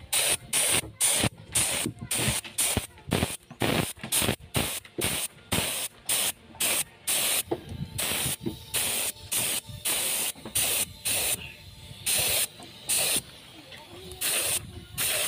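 Gravity-feed air spray gun spraying white paint in short hissing bursts as the trigger is pulled and released. The bursts come about three a second at first, then more spaced out after about eight seconds.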